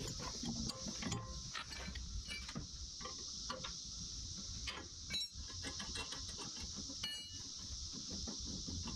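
Steady, high-pitched drone of a cicada chorus, with scattered metallic clicks and clinks of a socket and combination wrench working a mower blade's spindle nut; a louder cluster of clinks comes about halfway through.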